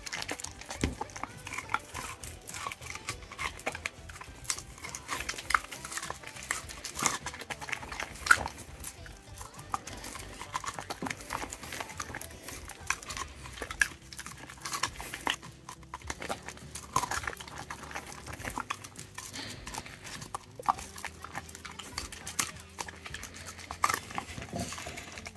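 A dog biting and chewing sweet corn off the cob, close-miked: rapid, irregular crunches of kernels breaking. Near the end, licking and nosing at loose kernels on a plate.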